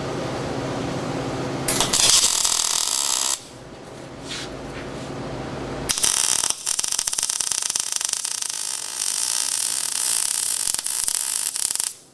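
MIG welder arc crackling as steel brackets are welded onto steel straps: a short tack weld of about a second and a half near two seconds in, then a longer bead of about six seconds starting near the middle that cuts off at the end. A steady low hum is heard before the first weld.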